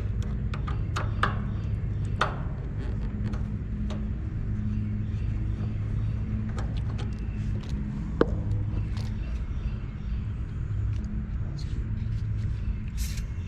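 Outdoor central air conditioner condensing unit running with a steady low hum, under scattered light clicks and taps of refrigerant pressure probes and hoses being handled.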